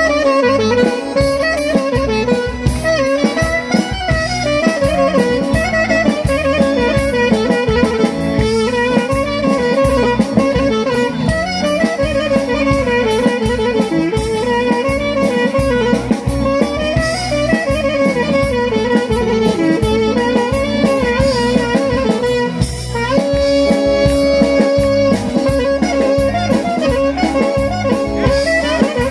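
Greek folk dance music from a band: a wavering, ornamented instrumental melody over a steady drum beat, with no singing.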